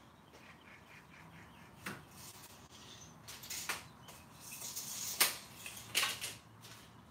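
Broom sweeping a concrete floor: scratchy swishes of the bristles, busiest in the second half, with several sharp knocks among them.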